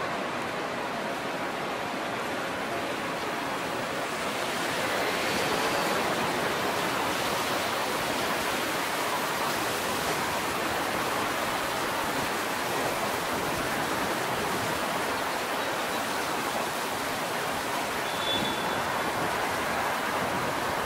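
Outdoor city street ambience: a steady, even rushing hiss of traffic and air, with a brief faint high chirp near the end.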